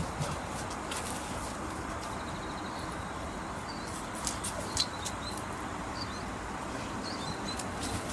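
Weimaraner puppies' claws clicking a few times on concrete, over a steady outdoor hiss.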